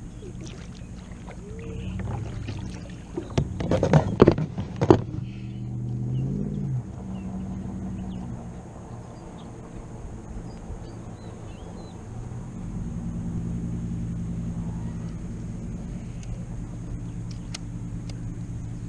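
Steady low motor hum, with a cluster of knocks and clatter about three to five seconds in.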